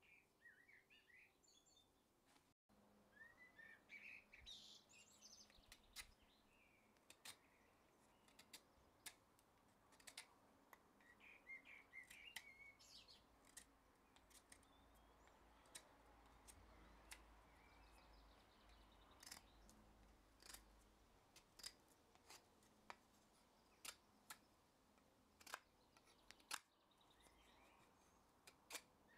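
Knife blade whittling a piece of hard wood: faint sharp clicks of the cuts, about one a second at irregular intervals. Birds chirp now and then in the background.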